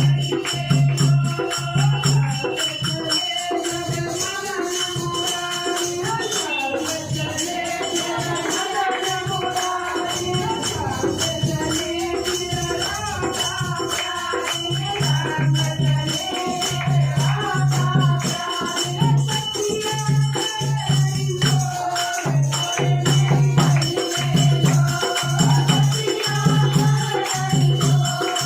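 Hindi devotional bhajan to Krishna sung by a woman over rhythmic percussion, with a regular low beat that grows stronger about halfway through.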